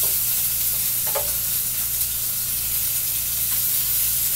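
Salmon fillets searing in a hot pan: a steady, even sizzle.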